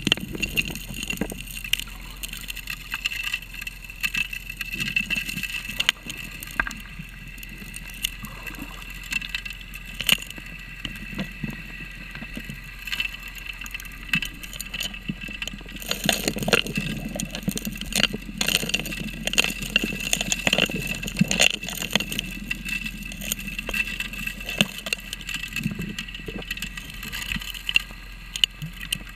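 Underwater sound of a 3-inch gold dredge's suction nozzle sucking up streambed gravel: stones clicking and knocking as they are drawn into the hose, over a steady high whine. The clatter thickens with a low rumble for several seconds past the middle.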